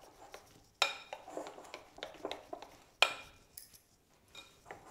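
Metal spoon beating thick mung dal batter in a glass mixing bowl: irregular scraping and light taps, with two sharp clinks of the spoon against the glass, about a second in and about three seconds in.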